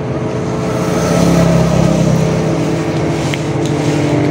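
A motor vehicle engine running close by with a steady hum, growing louder about a second in.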